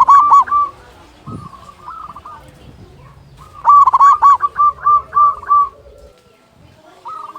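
Zebra dove (perkutut) singing: phrases of quick, repeated cooing notes. A phrase ends just after the start, a softer one follows about a second and a half in, and a loud phrase of about eight notes comes from about three and a half to nearly six seconds in.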